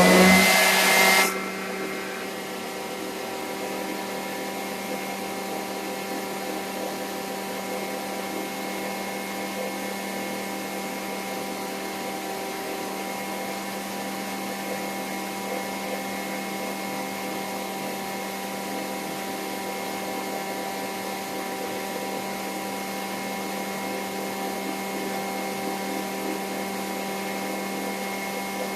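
Vacuum cleaner motor running steadily with a constant whine. It is louder, with extra air rush, for about the first second just after spinning up, then settles.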